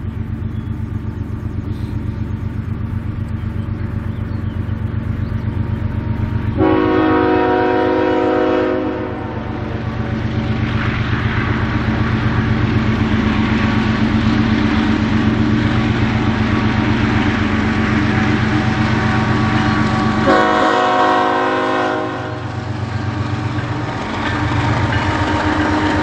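Two GE Evolution-series (GEVO) diesel locomotives working at full throttle up a grade, a steady low diesel drone that grows louder as the train nears. Their air horn sounds twice, a long blast about a third of the way in and a shorter one later.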